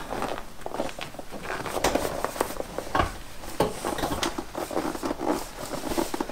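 Vinyl-covered rear seat back of a 1969 Pontiac GTO being worked into place by hand: irregular rustling and scraping with many light knocks of the seat and its frame against the car's interior.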